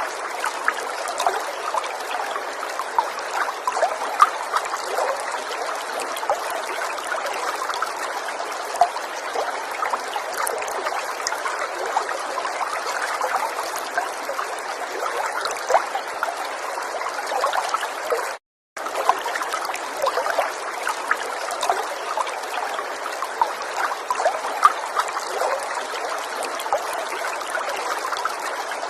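River water trickling and babbling steadily over stones, a dense rush full of small splashes. The sound cuts out for a fraction of a second about two-thirds of the way through, then resumes unchanged.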